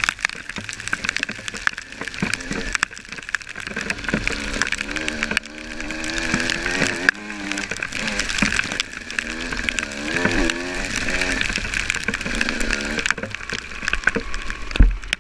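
Dirt bike engine revving, its pitch rising and falling again and again with the throttle as the bike rides a trail, over a steady rush of wind and tyre noise. A single thump near the end.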